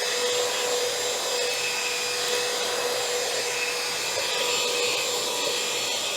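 XREXS H109 cordless handheld vacuum running steadily with an attachment on, a high-pitched motor whine over a steady rush of suction air.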